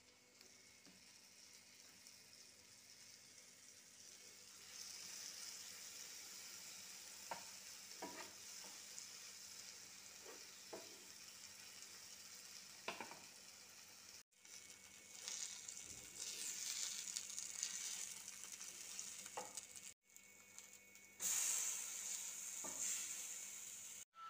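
Tomato-coated bread slices shallow-frying in oil in a nonstick pan: a steady sizzle that grows louder about five seconds in and again near the end, with a few light clicks. The sizzle drops out abruptly three times.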